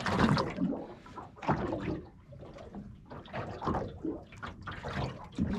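Small waves lapping and slapping against the hull of a small aluminium boat, in irregular splashes and knocks.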